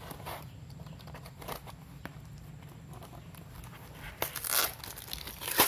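Hands opening a taped cardboard box: faint handling at first, then a short tearing sound about four seconds in and a sharp snap near the end.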